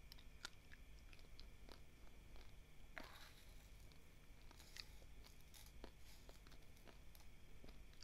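Faint crunching of dry basmati rice grains being chewed, a scatter of small sharp clicks, with a brief rustle about three seconds in.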